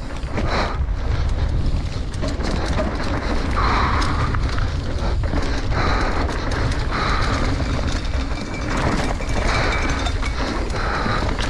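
Mountain bike descending a rough dirt trail at race speed: wind rumbling on the bike-mounted camera's microphone over tyre and trail noise, with frequent knocks and rattles from the bike over bumps and several short bursts of a brighter buzzing rattle.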